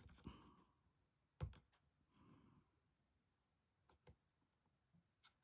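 Near silence broken by a few small clicks and taps of handling doll's house parts, the sharpest about a second and a half in, with soft breaths or a sigh near the start and in the middle.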